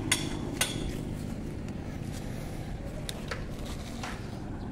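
Distant helicopter flying past: a steady low drone, with a couple of faint clicks in the first second.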